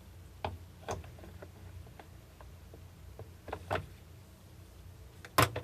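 A few light clicks and knocks: two about half a second and a second in, two more past the middle, and a louder double knock near the end, over a faint low hum.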